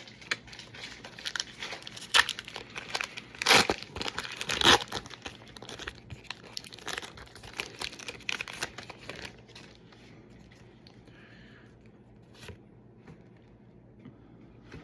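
Foil booster-pack wrapper crinkling and being torn open, with two loud rips about three and a half and four and a half seconds in. The crackling dies down about ten seconds in, leaving a few faint clicks.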